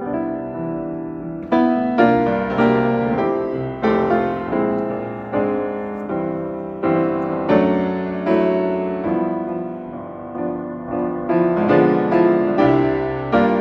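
Solo piano music: slow chords, each struck and left to fade before the next.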